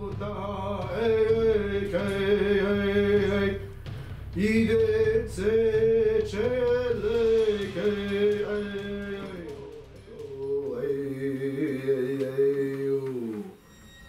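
A man singing long, held, wavering notes without clear words, in three phrases with short breaks about four and ten seconds in, stopping just before the end.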